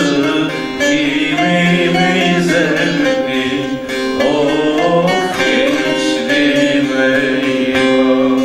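Male voice singing a Turkish folk song (türkü) in long held notes that bend in pitch, accompanied by a plucked bağlama.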